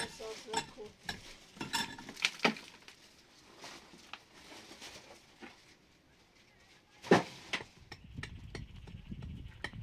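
Kitchen utensils clinking and scraping against pots and dishes, with one loud knock about seven seconds in; a low rumble starts about a second later.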